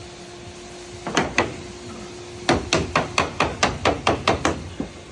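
Code 8 sheet lead being struck with a lead-dressing tool: two knocks, then a quick run of about nine strikes, roughly four to five a second.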